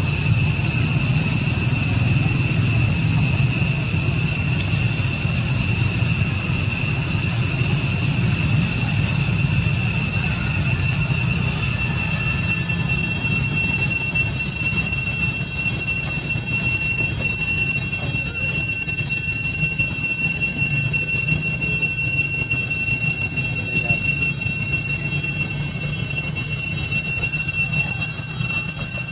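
Insects, most likely cicadas, droning in a steady high-pitched whine that holds unchanged throughout, over a low rumbling hum.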